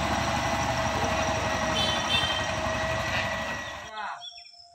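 A motor vehicle's engine running close by, steady with a low, regular pulsing, until an edit about four seconds in cuts it off. Birds chirping follow.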